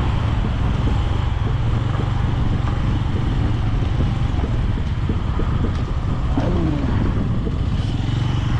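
Motorcycle engine running at low speed as the bike is ridden, a steady deep rumble.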